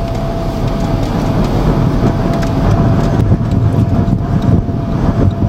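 Steady road and wind noise heard from inside a moving vehicle: a loud, continuous low rumble with a faint steady whine running through it.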